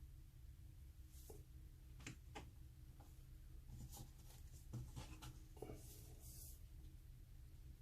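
Faint scattered clicks and light scraping of small plastic and carbon parts being handled on a workbench, over a low steady hum.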